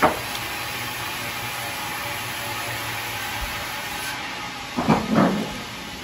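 Sawmill machinery running steadily, a level hiss with a low hum underneath, while the band saw is not cutting. There is a sharp knock at the start and two short loud sounds about five seconds in.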